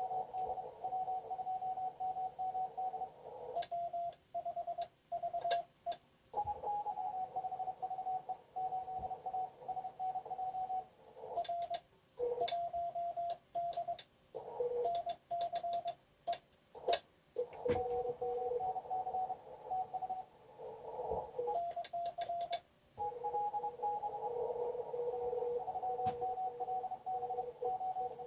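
Morse code (CW) signals on the 20-metre amateur band from an Icom IC-7200 transceiver: keyed dots and dashes at two different pitches over narrow-filtered band noise. Spells of sharp clicks come in a few times between the tones.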